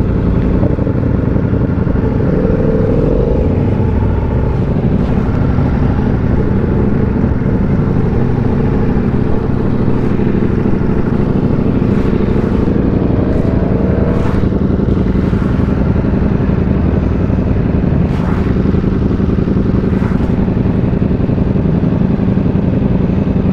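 Motorcycle engine running steadily at low speed, with no change in pitch to speak of.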